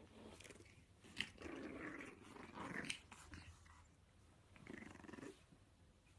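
Puppies play-wrestling, growling and grunting faintly in two spells: a longer one starting about a second in and a short one about five seconds in.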